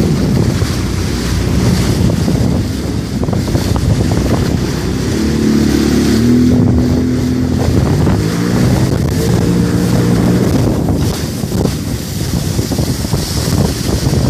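Jet ski under way over water: its engine drone mixed with heavy wind buffeting on the microphone and the rush of water. The engine's tones stand out most clearly from about five to ten seconds in.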